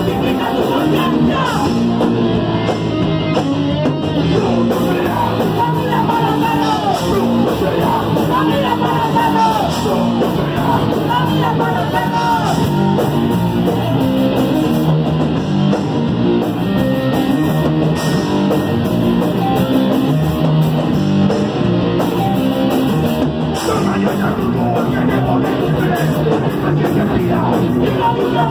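Punk band playing live at full volume: distorted electric guitar, bass and drums with shouted vocals.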